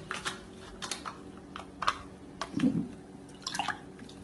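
Foil Capri Sun drink pouch being handled and squeezed over a glass: a series of scattered crinkles and light clicks.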